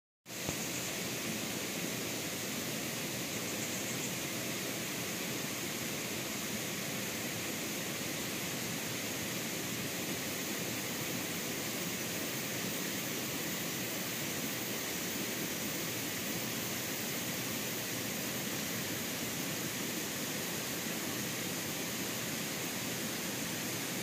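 Steady, even rush of a clear stream flowing over rocks below a waterfall.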